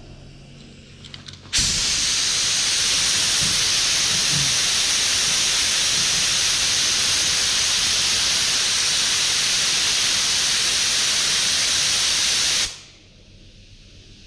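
Compressed-air paint spray gun hissing as it sprays: it starts abruptly about a second and a half in, holds steady for about eleven seconds, then cuts off.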